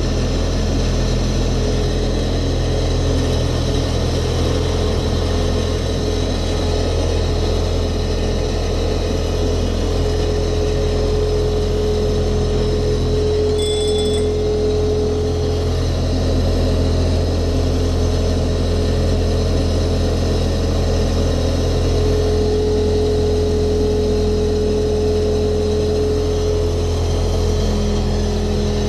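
Diesel engine of a small home-built diesel-hydraulic ride-on locomotive running steadily, with an even, continuous hum. A brief high tone sounds about halfway through.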